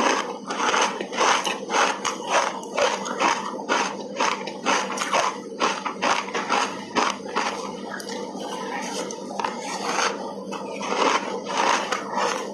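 Close-miked crunching and chewing of refrozen ice coated with matcha tea powder: a quick, irregular run of crisp crunches, about two to three a second.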